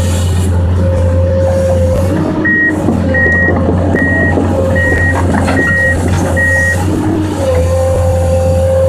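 Komatsu PC200 excavator's diesel engine running steadily, with its travel alarm beeping six times, about three beeps every two seconds, from a couple of seconds in, as the machine tracks.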